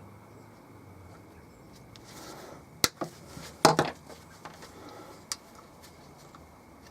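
Hand tools and small parts handled on a workbench: a few sharp clicks and knocks, the loudest about three and a half seconds in, with fainter ticks after.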